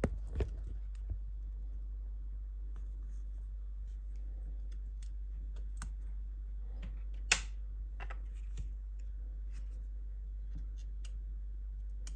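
Small clicks and taps from fingers handling a NanoVNA antenna analyzer, with one sharper click about seven seconds in, over a steady low hum.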